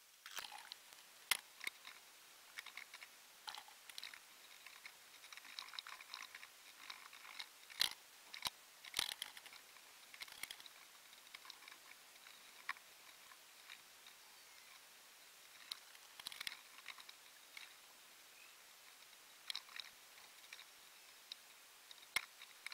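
Faint, scattered clicks and light taps from hand work on a sailboat's metal stern arch, a few of them louder than the rest.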